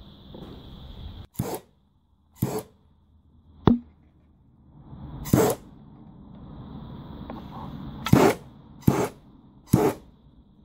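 About seven brief scrapes and clicks of small tools and cable parts being handled during soldering work, one a sharp click, over a faint steady high-pitched whine that drops out for a few seconds.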